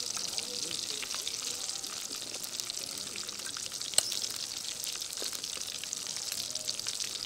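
Prawn pakodas in gram-flour batter deep-frying in hot oil: a steady, dense sizzle full of fine crackles. A single sharp click about four seconds in.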